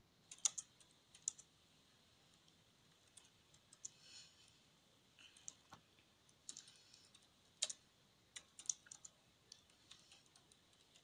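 Faint, irregular keystrokes on a computer keyboard as a message is typed slowly, a few keys at a time with pauses between.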